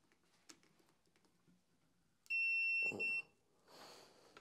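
Digital force gauge beeping its overload alert as it maxes out under load: a steady high-pitched beep just under a second long, broken briefly near its end. A dull knock sounds at the break.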